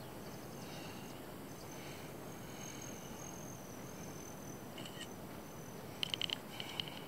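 Quiet outdoor ambience with a thin, high, steady insect buzz. About six seconds in there is a quick run of short, sharp chirps.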